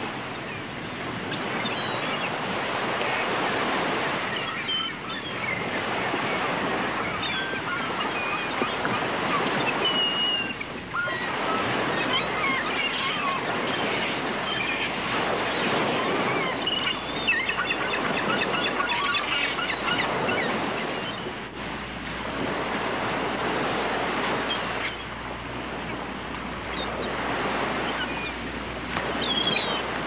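Seashore ambience: surf washing in, swelling and easing every few seconds, with seagulls calling now and then over it.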